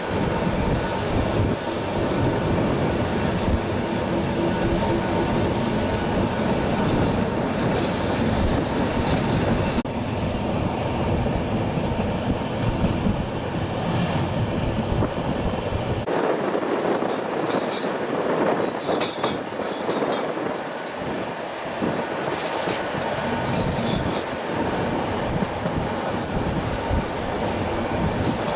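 Diesel-hauled passenger train running, heard from an open coach window: steady rumble of the wheels on the rails mixed with wind. High wheel squeal comes and goes on the curves in the first ten seconds or so.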